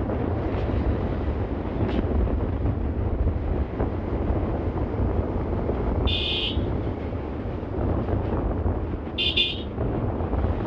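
Two short horn beeps, about six and nine seconds in, from a Bajaj Pulsar motorcycle riding along a village road, over a steady rumble of wind on the microphone.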